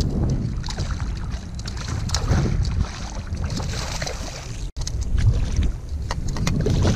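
Wind buffeting the microphone of a camera on a kayak, a loud low rumble with water sounds and many small scattered clicks and knocks. The sound cuts out for an instant about four and a half seconds in.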